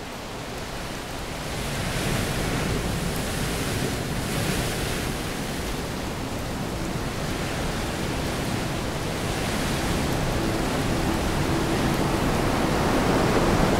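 Storm surf on a rocky coast with wind: a steady roar of breaking waves, with hissing swells every few seconds. It fades in over the first couple of seconds and grows louder toward the end.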